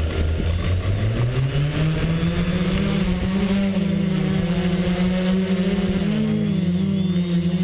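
XAircraft X650 V4 quadcopter's four brushless motors and propellers spinning up for takeoff, the buzz rising in pitch over the first two seconds. It then settles into a steady hovering drone whose pitch wavers slightly, most clearly about six seconds in.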